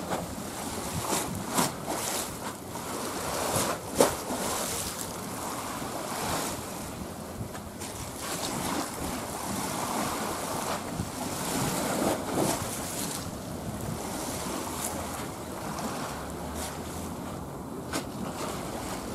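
Wind buffeting the microphone over the steady wash of sea waves, in irregular gusts, with a sharp thump about four seconds in.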